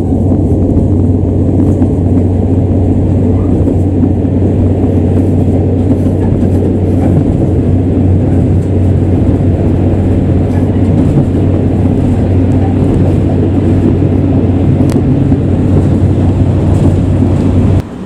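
Diesel engine of a KiHa 40 railcar running steadily, heard loud from inside the driver's cab as a low, even hum. It cuts off suddenly just before the end.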